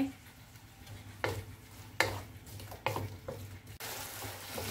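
Wooden spatula stirring grated potatoes, chicken and spring onions in a non-stick frying pan, with a few sharp scrapes against the pan over the sizzle of frying. Near the end the sizzle turns into a steadier, fuller hiss.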